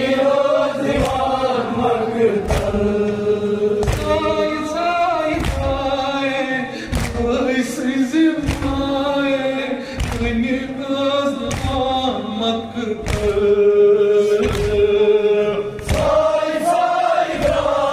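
A group of men chanting a Kashmiri noha (Shia mourning lament) in chorus. Hands beating on chests (matam) keep a steady thudding beat about once every second or so.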